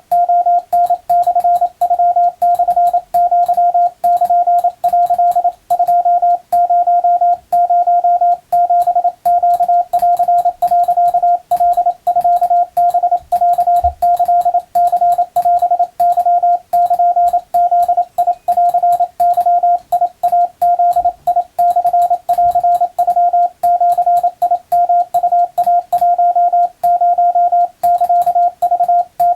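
Morse code (CW) for receiving practice: a single steady tone keyed rapidly on and off in dots and dashes, with short pauses between characters. Faint clicks mark each keying edge.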